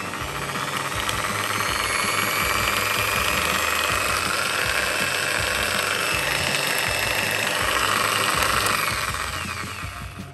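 Okatz JS100-QL 750 W corded jigsaw running with no load. The motor speeds up over the first couple of seconds, runs steadily, and winds down near the end.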